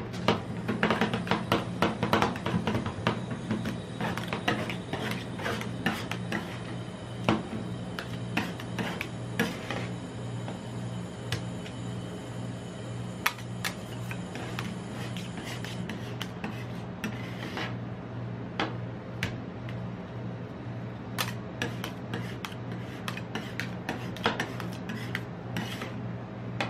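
Metal spatulas chopping and scraping an ice cream and M&M's mixture on the stainless-steel cold plate of a rolled ice cream pan. Rapid taps of the blades against the plate come in the first few seconds, then steady scraping and spreading with occasional clinks. A steady low hum runs underneath.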